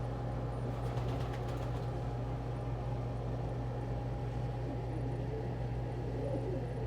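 Steady low mechanical hum, with a few faint clicks about a second in.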